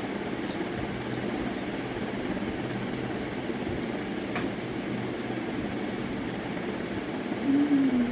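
Steady low mechanical hum with a faint steady tone in it, like room ventilation running. One small click about halfway through, and a short pitched sound wavering downward just before the end, the loudest moment.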